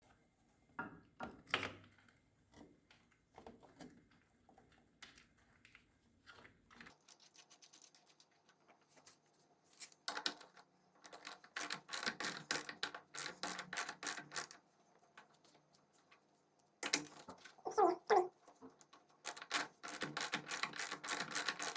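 Ratchet wrench clicking in quick runs as it turns the bolt of a bushing puller, drawing a worn rubber engine-mount bushing out of a GY6 scooter engine, with a brief squeal late on as the bushing gives.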